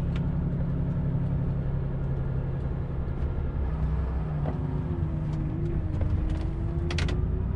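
Volvo FH460 LNG truck's six-cylinder gas engine running steadily under way, heard from inside the cab as a low, even hum over road noise. A faint steady whine joins about four and a half seconds in.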